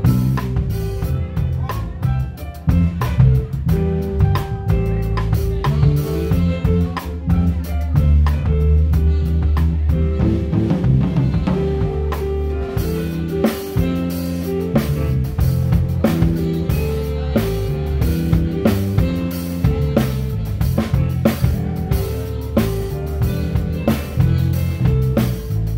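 Live band music with a drum kit close to the microphone: snare, bass drum and cymbal hits over a moving bass line and held melody notes, steady without a break.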